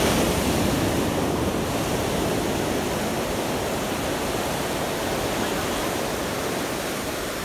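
Ocean surf breaking and washing up a sandy beach. A steady rush of water swells at the start and slowly eases off.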